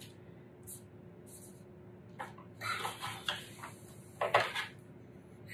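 Paper and a photograph print being handled on a tabletop: a string of short rustles and light knocks, the loudest about four seconds in.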